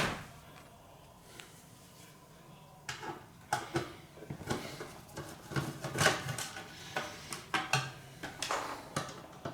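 Hands unplugging leads and moving small equipment on a workbench: after about three seconds of quiet, a run of irregular light clicks, knocks and clatter.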